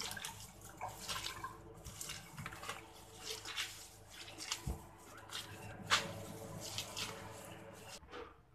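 Hands rubbing and squeezing wet cucumber leaves in a plastic bowl in a stainless steel sink: an uneven wet rustling with splashes and drips of water, cutting off near the end.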